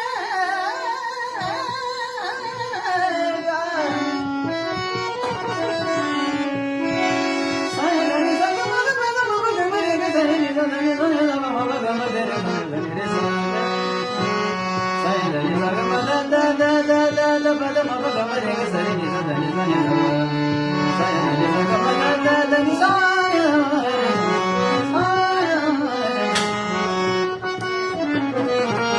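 Devotional kirtan singing: a high male voice holding long, gliding melodic phrases without clear words, accompanied by harmonium and hand drum.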